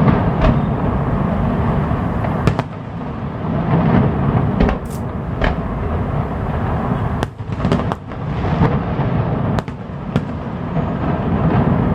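Fireworks display: a loud, continuous low rumble of bursts, with sharp bangs every second or two.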